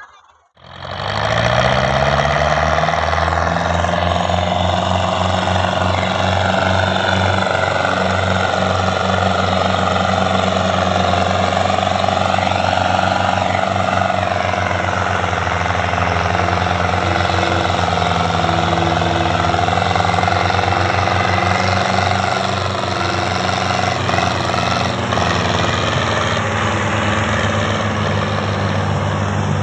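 Belarus 510 tractor's diesel engine revving up about a second in, then running hard and steady under load while pulling a heavily loaded sugarcane trolley.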